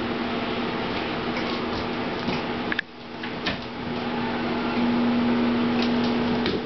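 A steady mechanical hum with a held low tone, with a few faint clicks and taps over it; the hum briefly drops out about three seconds in.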